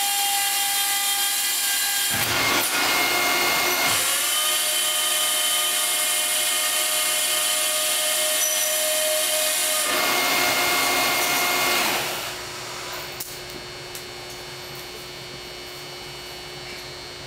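Hydraulic power unit of a 50-ton four-post down-acting press running loud with a steady whine as the ram cycles, its pitch shifting twice in the first few seconds. About twelve seconds in it drops to a much quieter steady hum as the platen comes to rest at the top.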